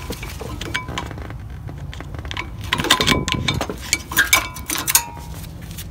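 Brake pads being worked out of a 2007 Honda Odyssey's front caliper bracket by hand: light metallic clinks and scrapes of the pad backing plates against the bracket, busiest in the second half.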